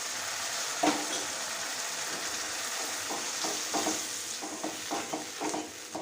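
Onion, capsicum and sauce sizzling in a hot pan just after a little water was poured in, with a steady hiss. A single knock comes just under a second in, and from about three seconds in a spatula stirs and scrapes the pan in quick strokes.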